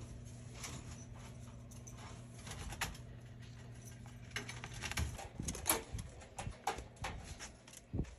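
Scattered light clicks, knocks and rattles of handling at a wire-mesh rabbit hutch, over a low steady hum that stops about four seconds in.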